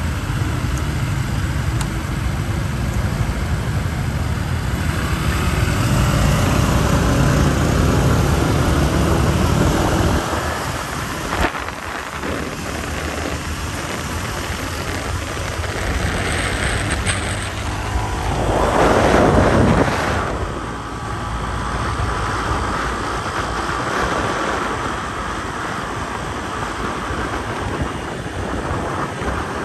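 Motorbike engine running with traffic around it, first standing and then riding off, with wind rushing over the microphone. About two-thirds of the way in, a louder rushing swell lasts a couple of seconds.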